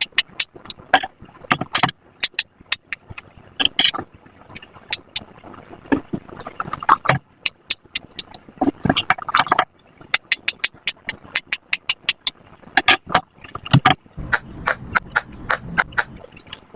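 Silicone pop-it fidget bubbles being pressed one after another, a rapid run of sharp little pops, several a second, with brief pauses between rows.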